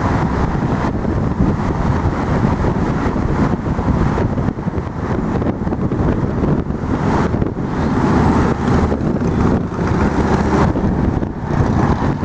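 Wind buffeting the microphone in uneven gusts, over a steady rumble of city street traffic.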